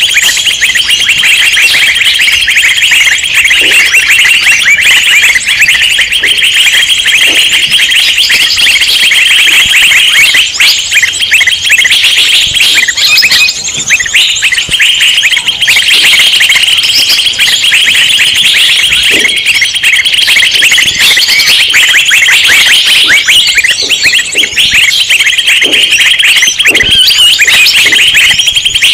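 Dense, continuous, rapid chattering of many small songbirds calling at once: a noisy mixed-flock bird-lure recording ('suara burung ribut') made to draw in wild birds.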